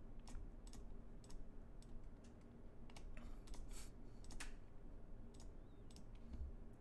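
Computer mouse clicking: a dozen or so quiet, irregularly spaced clicks over a faint steady hum.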